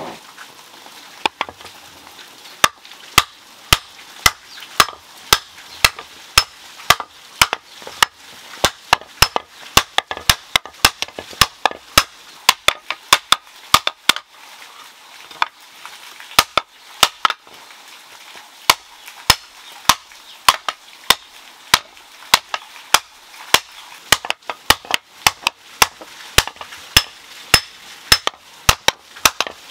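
Hand hammer beating a red-hot iron plate on a stone anvil, hot-forging it into a pan: a long run of sharp, ringing metallic blows, about two to three a second, starting about a second in.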